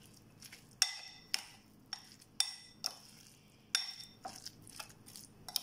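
Metal spoon stirring a grated boiled-egg filling in a glass bowl, clinking against the glass about nine times, roughly every half second, each clink ringing briefly.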